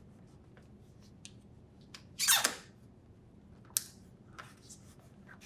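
A strip of adhesive tape pulled off a roll in one short rasp about two seconds in, among light clicks and taps from handling, with a sharp click near the four-second mark.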